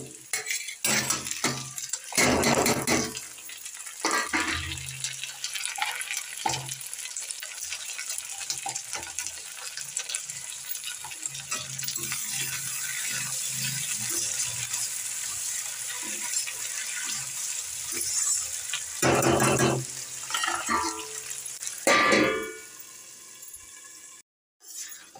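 Sliced onions, then tomatoes, frying in oil in an iron kadhai: a steady sizzle with a metal spatula scraping and knocking against the pan. Near the end a steel lid goes on and the sizzle turns much quieter.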